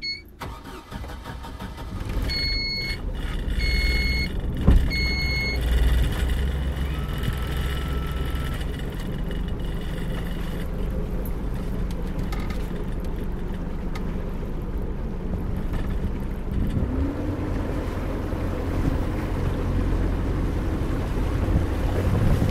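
Motorboat engine running under way, its note rising as the boat speeds up, with wind and water noise around it. Three short electronic beeps sound a few seconds in.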